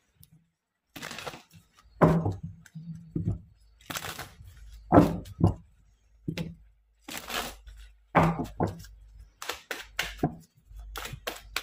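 A deck of tarot cards being shuffled in the hands: a run of irregular papery swishes and slaps, one or two a second, starting about a second in.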